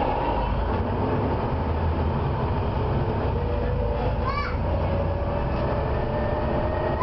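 Volvo B7TL bus's diesel engine running under way with a steady low rumble, while a thin whine rises slowly from about three seconds in. Just after four seconds comes a short high screech of quick falling squeaks, the squealing that the uploader puts down to the fan belt.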